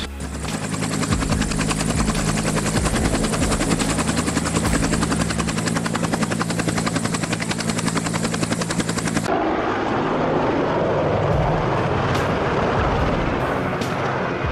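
Helicopter flying: rapid rotor-blade chop over a steady engine drone. About nine seconds in, the sound cuts abruptly to a second, duller helicopter recording.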